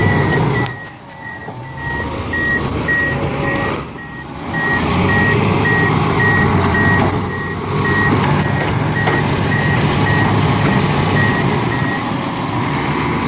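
A heavy vehicle's reversing alarm beeping in a regular series that stops near the end, over the running of a diesel engine. The engine sound drops away briefly twice in the first few seconds.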